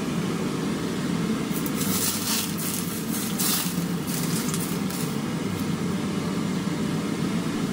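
Smoking-hot oil poured from a nonstick pan over raw scallion shreds on a plate of steamed fish, sizzling and crackling, loudest for a few seconds from about one and a half seconds in, over a steady low hum.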